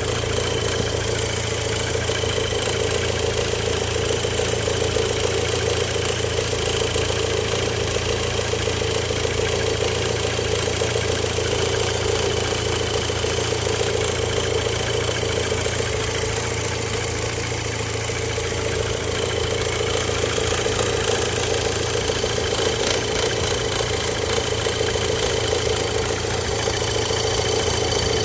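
MK5 Golf GTI's 2.0-litre turbocharged four-cylinder engine idling steadily at operating temperature, an engine the owner says has a timing issue.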